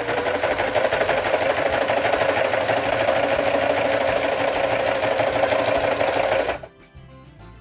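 Domestic sewing machine running at a steady, fast stitching rhythm, putting tacking stitches down the folded mitered corner of a quilt binding; it stops about six and a half seconds in.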